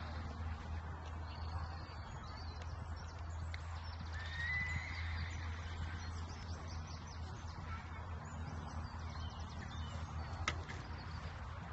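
Show jumping horse cantering round a course, its hoofbeats faint under a steady low rumble, with a short rising whistle about four seconds in. A single sharp knock comes about ten and a half seconds in.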